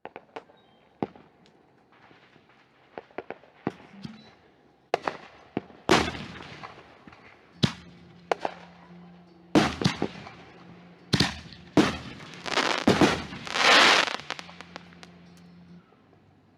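Consumer fireworks going off: a string of sharp bangs, sparse at first, then coming faster and louder from about six seconds in. A dense crackling burst follows near the end, then they die away.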